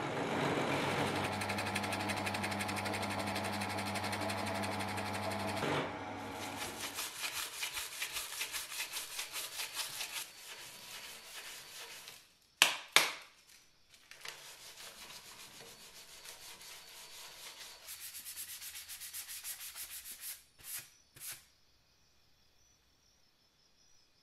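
A drill press motor runs with a steady hum for about the first six seconds, then stops. Rapid back-and-forth hand-sanding strokes on wood follow, broken by two sharp knocks about halfway through and two more clicks near the end.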